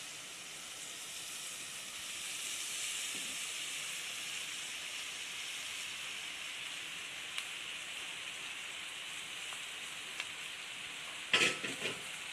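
Chopped onion, capsicum and boiled macaroni sizzling steadily in hot oil in a pan. Near the end, a few sharp knocks and scrapes as a spatula starts stirring against the pan.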